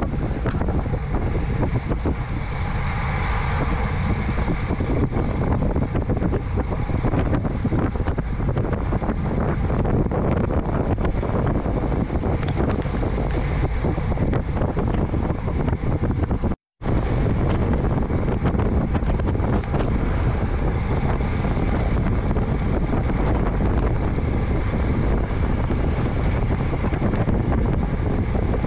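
Steady, heavy wind buffeting on a bike-mounted camera's microphone during road cycling at around 23–27 mph, mixed with road rumble. The sound cuts out completely for an instant just past halfway, then resumes the same.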